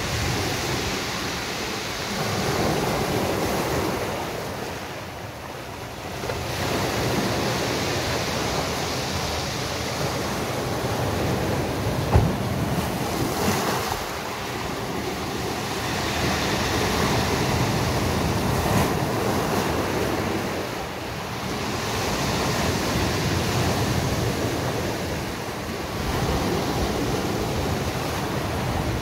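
Sea waves breaking and washing up on a beach, the surf swelling and easing every several seconds. A single short thump about twelve seconds in.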